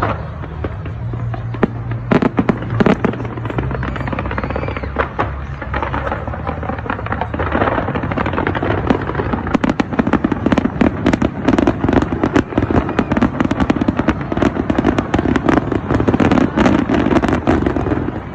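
Fireworks display: a steady run of bangs and crackles that grows into a dense, rapid crackling barrage in the second half.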